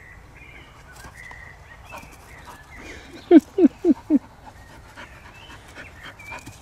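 A dog gives four quick short yips, each falling in pitch, about a quarter second apart.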